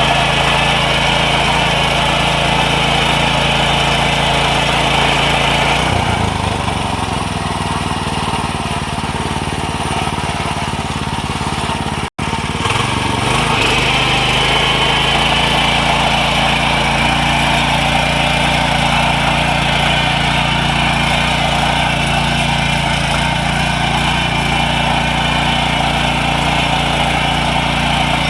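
Small engine of a power weeder running steadily while tilling mud. About six seconds in the engine note drops lower, as under load, then after a momentary break in the sound near the middle it goes back to its earlier, higher note.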